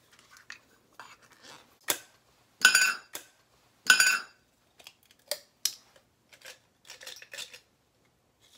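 Kitchen dishes and metal utensils clinking and knocking: a sharp click about two seconds in, then two louder ringing clinks about a second apart, followed by lighter scattered taps.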